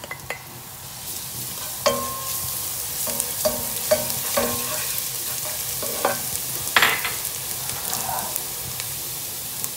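Chopped garlic sizzling in hot olive oil in a non-stick saucepan while it is stirred with a wooden spoon. The sizzle builds about a second in as the garlic hits the oil, with a few sharp knocks and scrapes against the pan.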